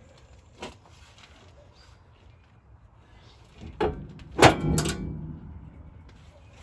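Scania 124L truck's brake drum being slid onto the wheel hub over new brake linings: a light knock under a second in, then a scrape and a loud metallic clank about four and a half seconds in that rings briefly as the drum goes into place.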